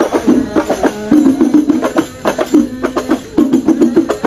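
An ensemble of hand-held frame drums (rebana) beaten together in a quick, steady rhythm.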